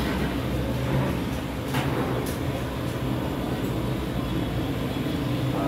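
Steady low background hum, with two brief clicks about two seconds in.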